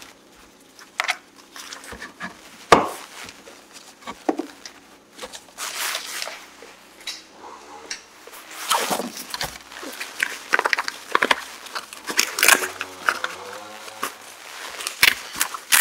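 Handling noises from fitting a fabric trunk organizer over a car's rear seat back: the fabric rustling and swishing as it is pulled into place, with scattered small clicks and knocks and one sharper knock about three seconds in.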